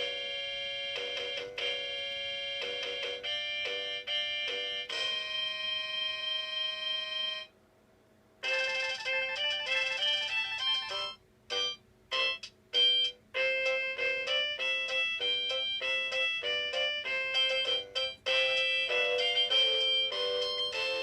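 Anpanman Pika Pika toy keyboard playing its built-in demo melody in bright electronic tones. The tune ends on a long held chord, then after about a second of silence the music starts again with short, choppy notes.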